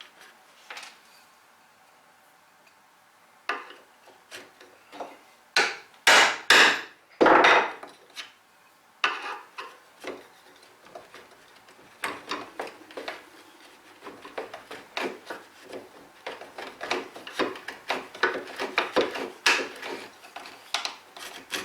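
Mortise chisel working in a mortise in soft pine. A few loud wooden knocks come about six to seven seconds in, then a long run of quick, short scraping strokes as the chisel clears waste along the bottom of the mortise.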